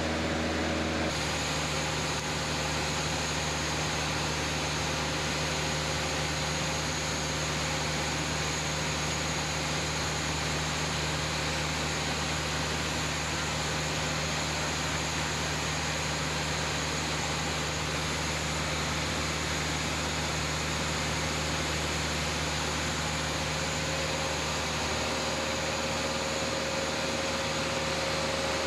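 Cabin noise of a single-engine Cessna in cruise: the piston engine and propeller drone steadily under a wash of wind noise. The pitch of the hum shifts abruptly about a second in.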